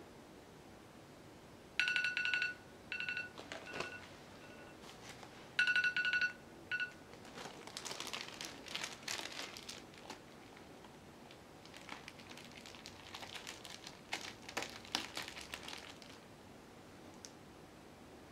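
Two short runs of electronic beeps with a clear tone, the loudest sounds, about two and six seconds in, then a plastic bag crinkling and rustling for several seconds as it is handled by hand.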